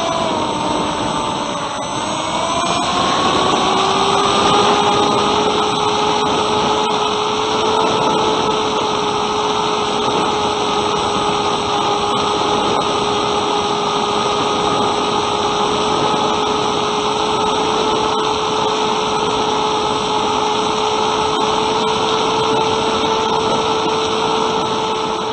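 Bixler 2's brushless electric motor and pusher propeller whining steadily over wind rush, heard from the camera mounted on the plane. In the first couple of seconds the motor slows and its pitch drops, then it speeds back up to a steady cruise.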